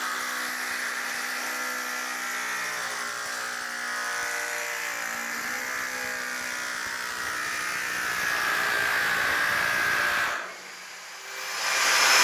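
A motor runs steadily with a humming, slowly wavering pitch. Near the end it dips briefly, then a loud, even rushing noise swells.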